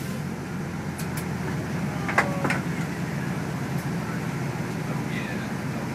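Fire engine's diesel engine running, a steady low rumble heard from inside the cab, with a few light clicks and knocks about one and two seconds in.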